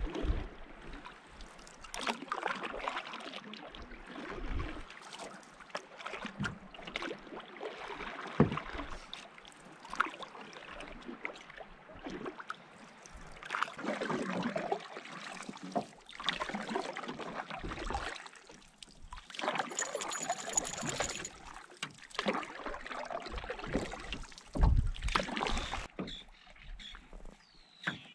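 Canoe paddle strokes: the blade dipping and pulling through lake water, with splashing and dripping that swell and fade every two to three seconds.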